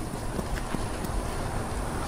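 Low, steady rumble of wind buffeting the microphone outdoors, with a few faint soft knocks.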